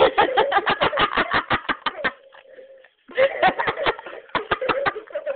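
Rapid giggling laughter in two bouts, the second starting about three seconds in.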